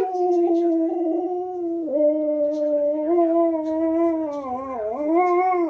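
Malamute-husky cross dog howling: one long howl held at a steady pitch, dipping briefly twice, the second time about a second before it ends.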